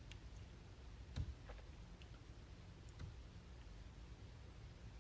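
A few faint, scattered clicks and taps over a quiet room hum, the sharpest about a second in.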